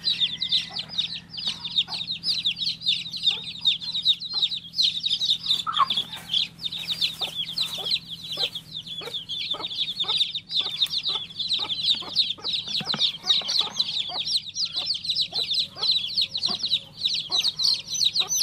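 Baby chicks chirping: a continuous stream of rapid, high-pitched, overlapping peeps with a downward sweep, from several chicks at once.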